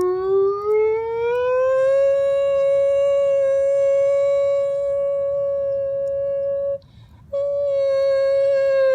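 A boy's voice imitating the wail of a tornado siren: a long tone that rises over about two seconds, holds steady, breaks off briefly for a breath about seven seconds in, then comes back at the same pitch and begins to wind down.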